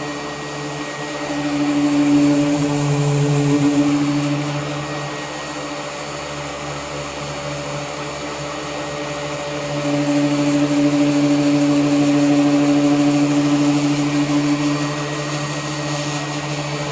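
Power sander running steadily against a car body panel, a motor hum with a hiss of sanding over it. The sound swells and eases as it works, louder a couple of seconds in and again from about ten seconds.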